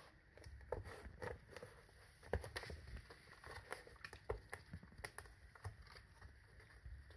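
Five-week-old kittens playing on foam floor mats: faint, irregular light taps, scuffs and claw scratches as they pounce and bat at a cardboard scratcher toy.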